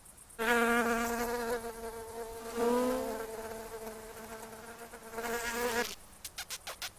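Cartoon ladybird's wing buzz: a steady pitched drone with a brief upward swoop about halfway through, stopping about a second before the end. A rapid run of ticks follows near the end.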